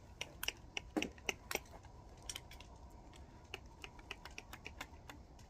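Hand swaging tool working a marked end of copper refrigerant tubing: a run of sharp metallic clicks, several a second and uneven, loudest and densest in the first couple of seconds.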